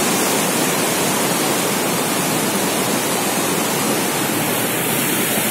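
Loud, steady rushing of the Ganga (Bhagirathi) river's fast white-water rapids.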